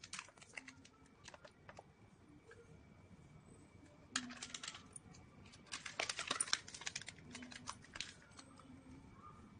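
Faint crinkling and light tapping of a paper sachet as powder is shaken out of it into a plastic cup. The clicks bunch up about four seconds in and again around six to seven seconds.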